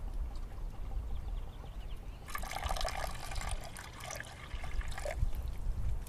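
Water poured in a stream into a hanging clay pot, splashing for about three seconds from about two seconds in, then stopping.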